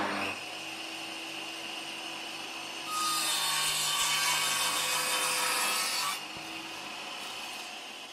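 A saw cutting through wood, used as a sound effect. It grows louder for about three seconds in the middle, then drops back and fades out.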